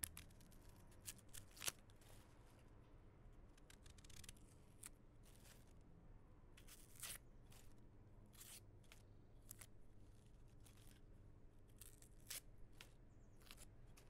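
Onion skins being peeled: soft, irregular papery crackles and short tearing rasps, over faint room tone with a low hum.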